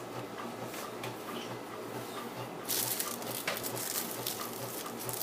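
Plastic packaging rustling and crinkling as it is handled, starting about three seconds in, over a faint steady low hum.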